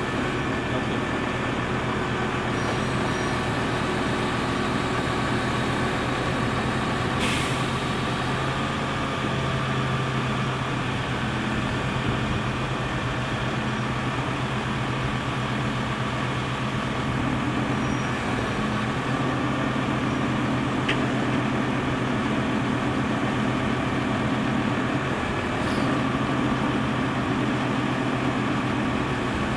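Truck engine of a mobile container washing vehicle running steadily, with a short hiss of air about seven seconds in.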